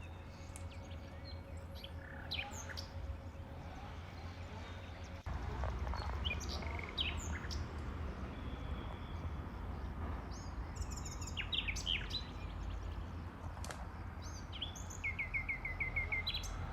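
Small birds chirping, several short calls and near the end a quick run of repeated notes, over a steady low rumble.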